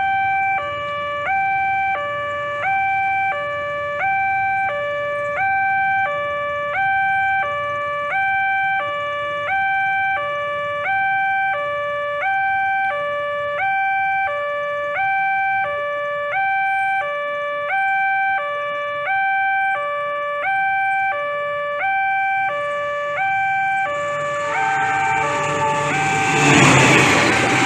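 Two-tone electronic railway level-crossing warning alarm, alternating between a high and a low tone about once a second. In the last few seconds a diesel-hauled passenger train comes up and passes close by, its rumble loudest near the end.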